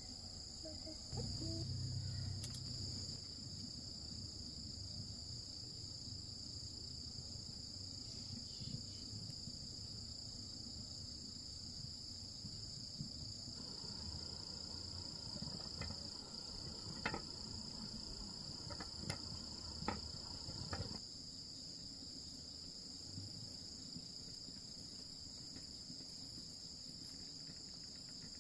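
Insects keeping up a steady, high-pitched chorus of unbroken trilling, with a few light clicks and taps about halfway through.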